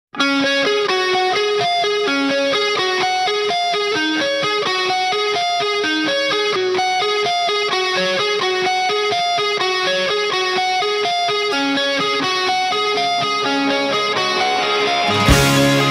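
Background music: electric guitar playing a quick, repeating run of picked notes. Just before the end, a crash brings in a louder, fuller, heavier section.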